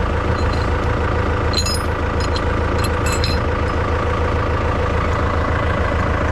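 Farm tractor engine idling steadily while hitched to a round baler, with a few short metallic clinks about one and a half to three and a half seconds in.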